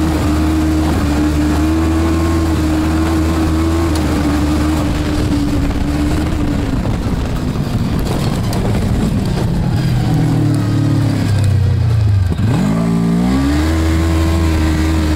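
Snowmobile engine running hard at a steady high pitch, then easing off and sagging lower over several seconds. About twelve seconds in the revs drop sharply and climb straight back up to speed.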